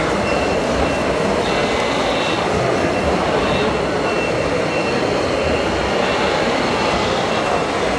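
Steady mechanical drone of radio-controlled model construction machinery at work, including a hydraulic model excavator digging. A faint high beep repeats steadily through it.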